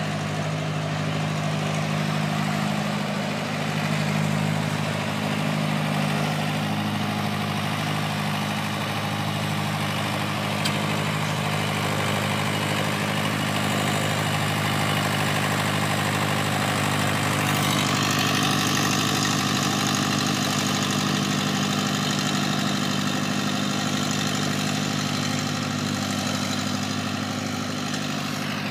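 Green Deutz tractor's diesel engine running steadily as it pulls a subsoiler through garden soil, growing a little louder and harsher about two-thirds of the way through.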